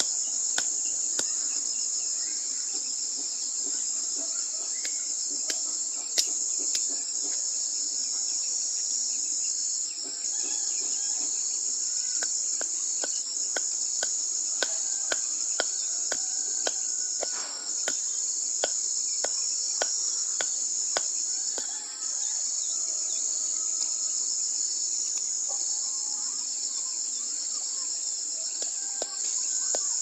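A steady, high-pitched chorus of insects drones on throughout, with irregular sharp knocks and taps scattered through it.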